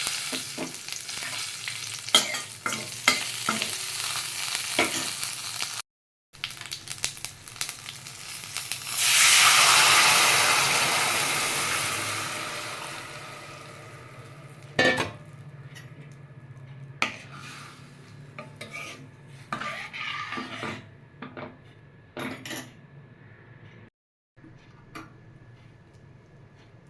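Tempering frying in hot oil in a kadai, a steady sizzle with sharp pops and spluttering, stirred with a spoon. About nine seconds in a much louder sizzle swells up and slowly dies away. Later the spoon knocks and scrapes against the pan over a quieter sizzle.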